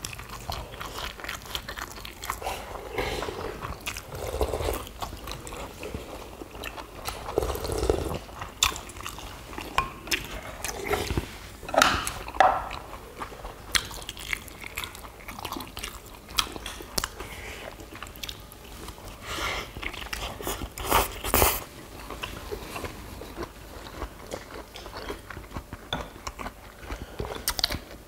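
Several people chewing and crunching a meal of rice, pollack stew and spring greens close to the microphone, with irregular sharp clicks throughout.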